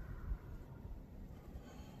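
Low, steady wind rumble on the microphone, with a faint distant call in the first half second.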